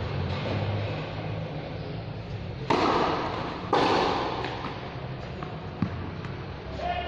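A tennis racket hitting a ball on a serve: a loud, sudden pop that rings out briefly, followed about a second later by a second loud thud as the ball lands. A smaller sharp tap comes near the end.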